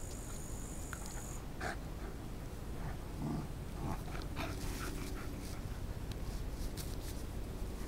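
Bedlington terrier puppies jostling right at the microphone, with scuffling, a few short vocal sounds and dog breathing.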